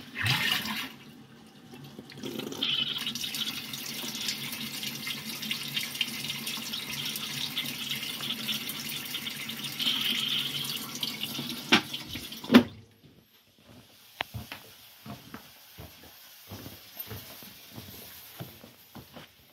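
Water running in an RV toilet and its plumbing for about ten seconds as the lines are flushed into the draining black water tank, stopping abruptly with a loud clunk. Footsteps follow on the trailer floor.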